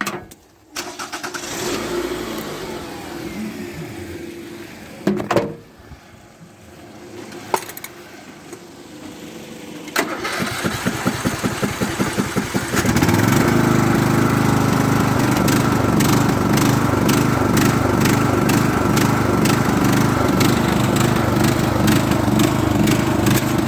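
A Briggs & Stratton engine on a Craftsman riding mower being cranked by its starter for about three seconds, then catching and running steadily and loudly. Before the cranking there is a quieter stretch with two sharp knocks.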